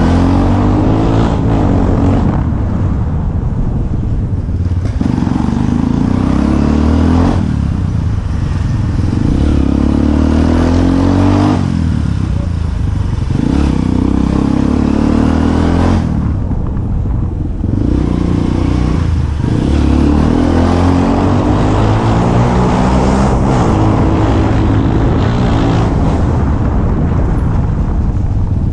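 Motorcycle engine heard from the rider's seat, riding at low speed: the engine note rises as it is throttled up and drops back as the throttle is eased off, several times over.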